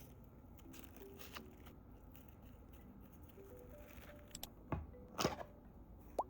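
Quiet background music with a soft melody, with a few sharp clicks and knocks over it, the loudest a little past the middle.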